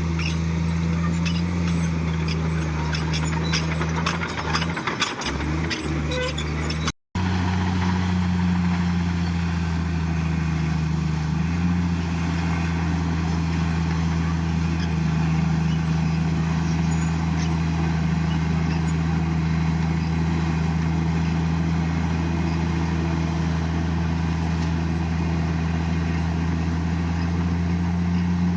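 Heavy diesel engine of earthmoving machinery running under steady load, with some clattering a few seconds in; the sound cuts out for an instant about seven seconds in and the engine goes on steadily.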